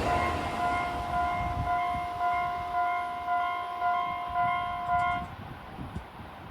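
Railway level crossing warning bell ringing in even strikes a little under twice a second, with the altered, off-normal tone this crossing has been giving, then stopping about five seconds in. The rumble of a passing train fades out early on.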